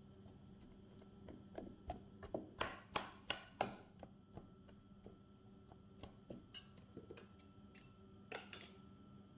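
Kitchenware being handled: a quick run of about eight knocks and clinks of dishes or utensils, loudest about three seconds in, then a few lighter clicks and a short scrape near the end.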